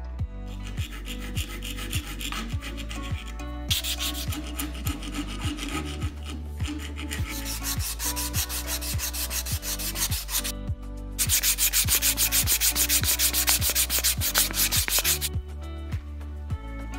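A sanding sponge rubbed in quick back-and-forth strokes against a bicycle frame tube at the brake mount, in three spells, the last and loudest about four seconds long. Background music with a steady beat runs underneath.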